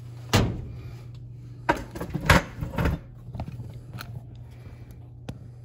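A run of irregular knocks and clunks from metal parts of an oil burner being handled, the loudest in the first three seconds, with a few lighter ticks after, over a steady low hum.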